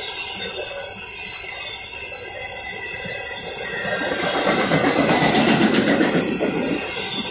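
Double-stack intermodal well cars of a freight train rolling past on the rails, a steady clattering rumble of wheels on track. It grows louder a little past the middle and eases off again near the end.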